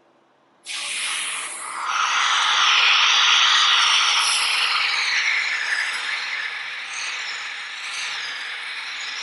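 Compressed air blowing through a Leslie S-48 single-chime locomotive air horn that fails to sound. It comes in suddenly about a second in as a loud hiss with no horn tone, swells a second later and then eases slightly: the horn is a dud.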